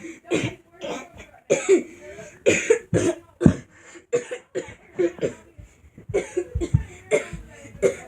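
A person coughing over and over in short, sharp coughs, about two or three a second in an uneven rhythm.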